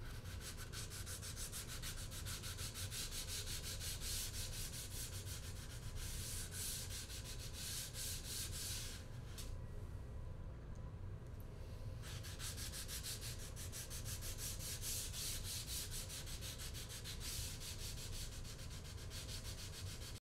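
Wet/dry sandpaper rubbed by hand along the cut edge of a PVC trim board, wet-sanding in quick back-and-forth strokes, with a short break about nine seconds in.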